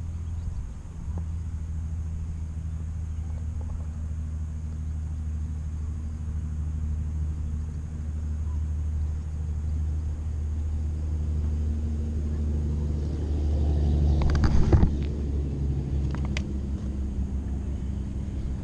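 A steady low mechanical hum and rumble made of several held tones. It swells about fourteen seconds in, along with a few sharp knocks.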